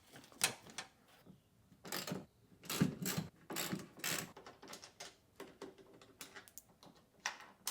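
Irregular clicks, knocks and short scraping rattles of hard plastic and metal as a hand inside a car door shell works the door lock actuator and its linkage loose, with the loudest cluster about three seconds in.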